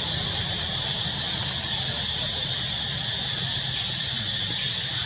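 Steady, high-pitched chorus of insects, likely cicadas, holding an even level throughout, with a low steady rumble underneath.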